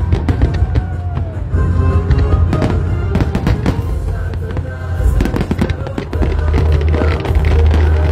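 Fireworks display: many sharp bangs of aerial shells bursting in quick, irregular succession, over music.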